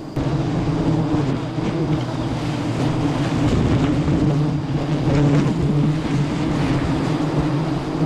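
A dense swarm of honey bees buzzing close around the microphone in a loud, steady drone.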